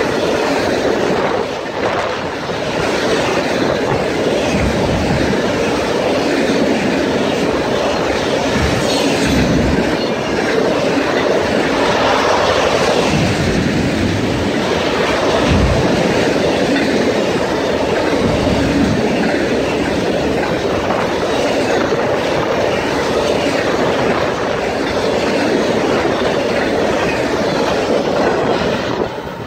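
Intermodal freight train of truck trailers on flatcars passing close at about 70 mph: a steady rush of steel wheels on rail and wind off the cars, with clickety-clack over rail joints and a few heavier low knocks.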